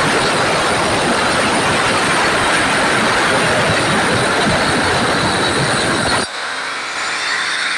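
Large angle grinder with a cutting disc sawing through a marble slab: a loud, steady grinding noise of blade on stone. About six seconds in it drops abruptly to a much quieter sound.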